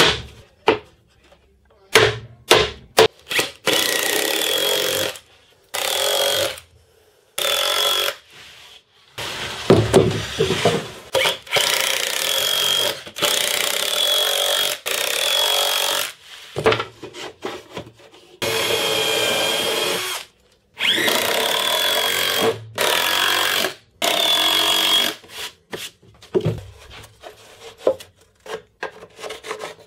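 Cordless drill/driver running in repeated short bursts into plywood, about ten runs of a second or two each with a steady whine that dips now and then. Between the runs come sharp wooden knocks and clicks as the boards are handled.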